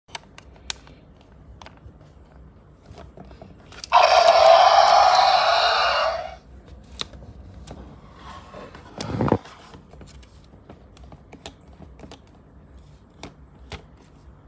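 Electronic roar from the Mattel Extreme Damage Allosaurus toy's sound feature, a loud harsh blast of about two seconds through its small speaker, followed a few seconds later by a short downward sweep. Light clicks and scrapes of the plastic figure being handled run through.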